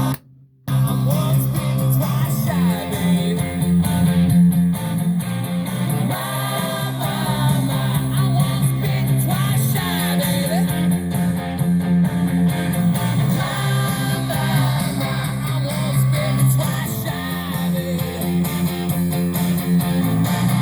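Guitar music with some singing, played through a Sansui Model 2000 stereo tuner amplifier under test. The sound cuts out briefly just after the start, then plays on steadily.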